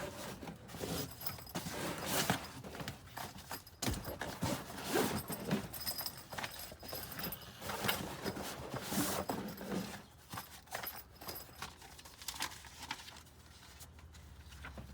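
Handling noise from unpacking fabric tool pouches: irregular rustling and scraping with light clicks, and one sharp knock about four seconds in.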